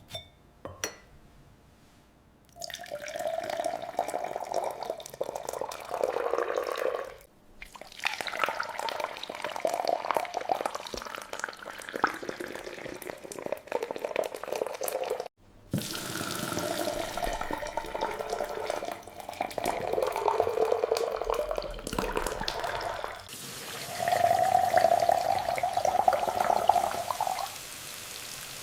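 Liquid running and splashing, in several separate stretches joined by abrupt cuts.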